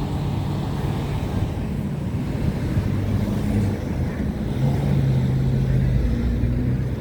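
Low, steady rumble of vehicle engines in a city street, with engine hums that shift in pitch and swell a little past the middle, over wind noise on the microphone.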